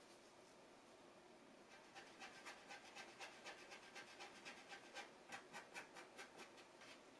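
A plastic mixing stick scraping back and forth on a sheet of card as two-part epoxy is stirred. The faint, quick strokes come about four a second, starting about two seconds in and stopping near the end.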